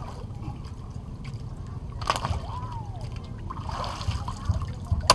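Shallow seawater sloshing and splashing around a sailfish being handled and washed by hand. There is a louder splash about four seconds in, as water is scooped and thrown over the fish.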